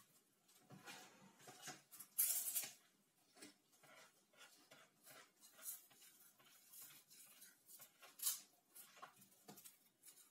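Soft, intermittent rustling and scraping of crisp corn sticks being pressed and mixed with cream in a bowl, with a louder rustle about two seconds in and another near the end.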